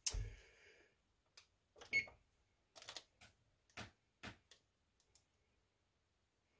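Buttons pressed on a GE electric range's oven control keypad to set the baking temperature: a series of short, faint clicks, about six over four seconds, with a brief electronic beep about two seconds in. A short knock comes right at the start.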